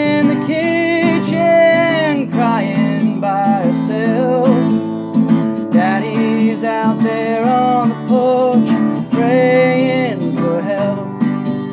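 Solo acoustic guitar strummed under a voice singing long, held phrases of a slow country-style song, with short gaps between the lines.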